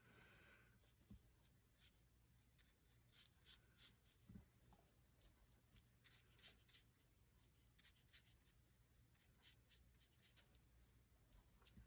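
Near silence with faint, scattered brush strokes on watercolour paper over a low steady hum.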